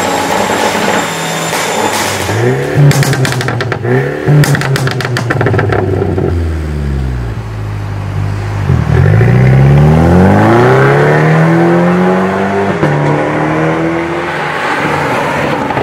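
Mercedes-Benz C300 Coupé's turbocharged four-cylinder through an ARMYTRIX aftermarket exhaust, revved in blips with rapid crackles and pops as the revs fall, the sign of a pops-and-bangs ECU remap. Later the car accelerates hard, revs rising, then dropping at an upshift and rising again.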